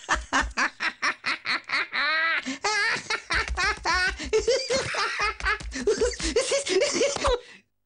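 High-pitched cartoon character voices giggling and laughing in quick bursts, with a long falling swoop of the voice about two seconds in and a wobbling laugh just after. The laughter cuts off suddenly near the end.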